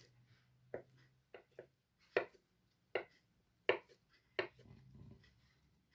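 Kitchen knife knocking on a cutting board, about seven sharp knocks at an uneven, unhurried pace.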